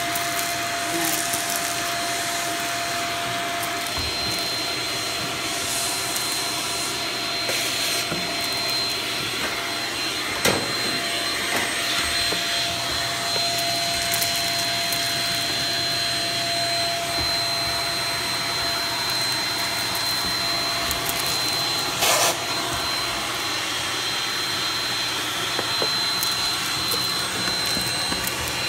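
Handheld vacuum (a Dustbuster) running steadily with a high whine while its nozzle is worked over fleece bedding, sucking up guinea pig droppings. Two brief knocks sound, about ten and twenty-two seconds in.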